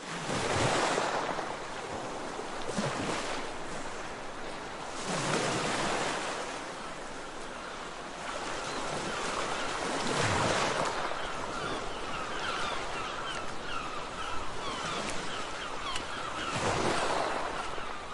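Sea waves surging and washing in, swelling every few seconds, with a quick run of short high gull calls in the second half.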